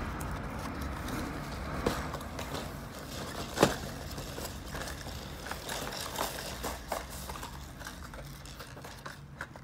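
Paper mailer and plastic wrapping being handled and pulled open by hand: rustling and crinkling with scattered clicks, the sharpest about three and a half seconds in.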